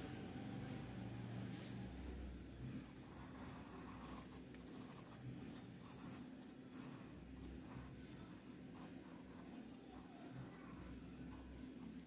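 Cricket chirping in an even rhythm, about three short high chirps every two seconds, over a faint steady high tone.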